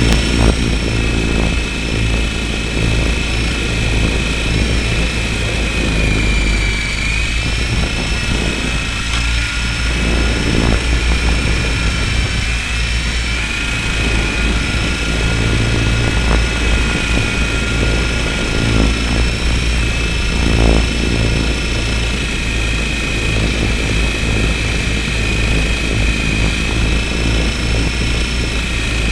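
Radio-controlled helicopter's motor and rotor heard from the helicopter itself: a steady high whine that wavers slightly in pitch, over a heavy low rumble of rotor buffeting.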